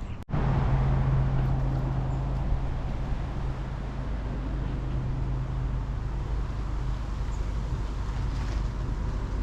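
A motor vehicle's engine running steadily, a constant low hum under an even rushing noise, which starts abruptly just after a brief dropout at the beginning.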